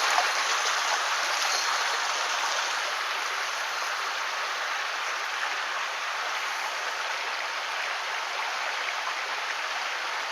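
Mountain stream water running steadily, getting slightly quieter over the first few seconds.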